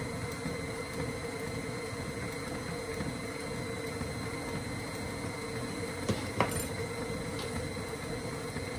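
KitchenAid Classic stand mixer running with a steady hum. Two light knocks come about six seconds in.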